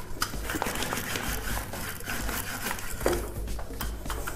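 Wooden rolling pin rolling pasta dough back and forth on a floured stainless-steel counter: a repeated rubbing with a few light knocks.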